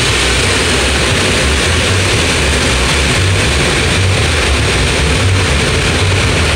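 Automatic car wash heard from inside the car: a loud, steady rush of water spray and air-dryer blowers on the windshield and body, with a low uneven throb beneath.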